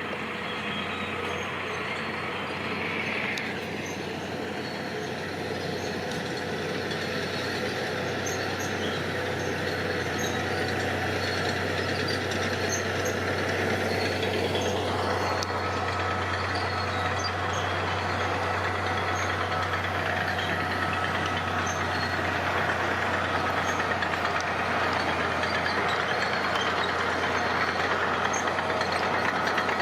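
Heavy machinery engine running steadily and slowly getting louder. A whine drops in pitch about three seconds in, holds, then climbs again about fifteen seconds in.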